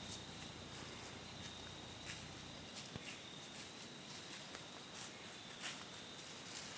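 Footsteps in dry leaves: scattered light crunches, with a faint steady high whine behind them.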